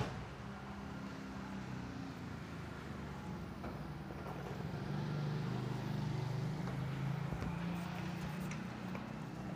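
A motor vehicle's engine running: a low, steady hum that grows louder about halfway through and then eases off.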